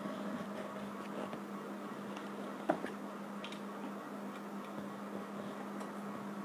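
Quiet room tone with a steady low hum, a few faint ticks, and one sharp click a little under three seconds in.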